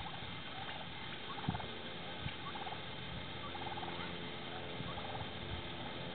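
Wild turkeys giving short calls, about five of them scattered through, over a steady low hum.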